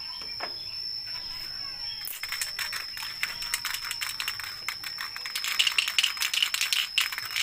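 Aerosol spray-paint can being shaken, its mixing ball rattling in fast clicks that start about two seconds in, over a steady high-pitched whine.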